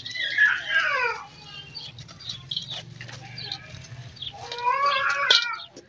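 Two drawn-out animal cries: the first slides down in pitch over the first second, the second comes about five seconds in. Between them, faint gritty crackles of dry charcoal lumps being crumbled by hand.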